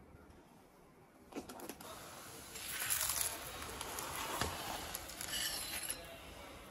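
Paratha frying on a flat griddle (tawa): oil sizzling under the flatbread, with a metal spatula scraping and tapping on it now and then. The sizzle starts about a second and a half in, is loudest around the middle, and eases toward the end.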